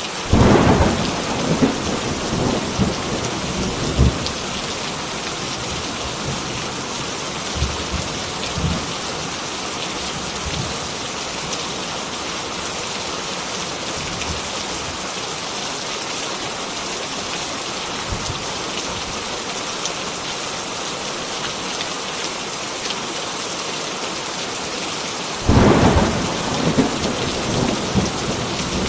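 Heavy rain falling steadily, with two rolls of thunder: one rumbling and crackling through the first few seconds, the other starting near the end.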